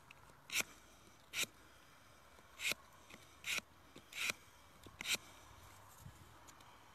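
Grafting knife shaving a walnut scion: six short scraping strokes, less than a second apart.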